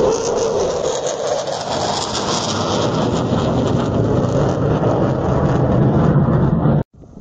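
Loud, steady jet-engine roar of a military fighter jet flying overhead. It breaks off abruptly near the end.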